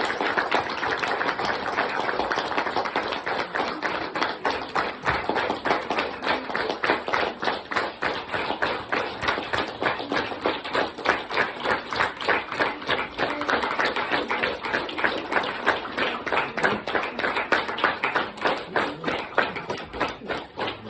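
Audience applauding, at first a scattered patter of claps that soon falls into rhythmic clapping in unison, about two to three beats a second.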